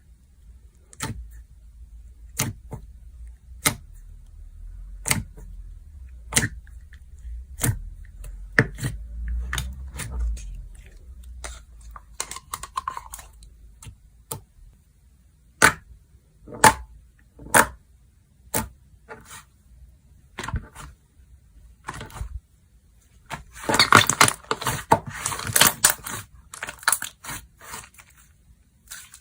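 Hands playing with slime, making sharp pops and clicks at a fairly even pace of about one every second and a bit. About twenty-four seconds in comes a dense burst of crackling and popping.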